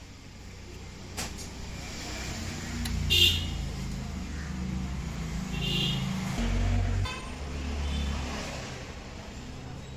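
Motor vehicle engines running and passing, with two short horn toots about three and six seconds in.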